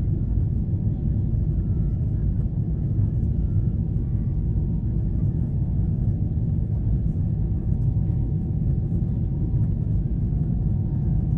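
Steady low rumble inside the cabin of a Boeing 777-300ER in flight, heard at a window seat over the wing: the noise of its GE90 engines and the air rushing past the fuselage.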